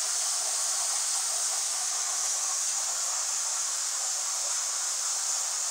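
Plasma cutter torch blowing its post-flow air purge after the arc has gone out: a steady hiss that does not change.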